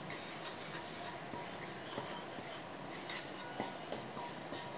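Flat wooden spatula rubbing and scraping over the bottom of a nonstick kadai in irregular faint strokes, stirring ghee as it melts.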